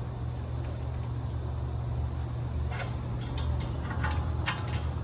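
Steady low hum with a few sharp metallic clicks and clinks near the end, from aluminium truss pins and connector hardware being handled.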